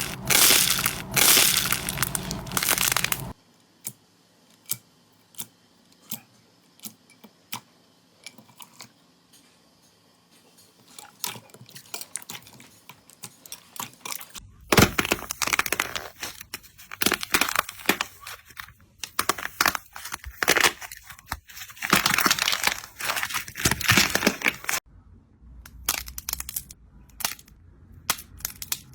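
Slime being pressed, squeezed and poked by hand, giving runs of crackling, crunching pops. Dense crackling comes in two long stretches, with sparser single clicks and pops between and after them.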